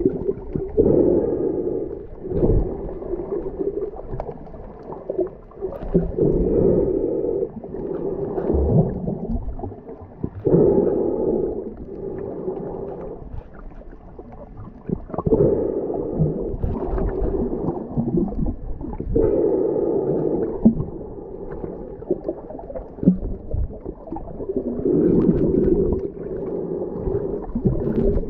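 Muffled underwater sound heard through an action camera's waterproof housing: water sloshing and gurgling, swelling every four or five seconds, with occasional faint knocks.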